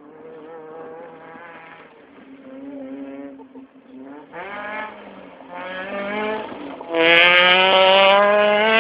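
Rally car's engine revving hard through several gear changes, the pitch climbing and then dropping back with each shift. It grows louder as the car approaches and is loudest over the last two seconds as it passes close by.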